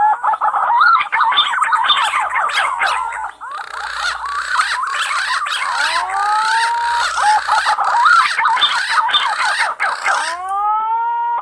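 A flock of punai (green pigeons) calling: many overlapping whistles and warbling notes. A drawn-out rising whistle comes about six seconds in and again near the end.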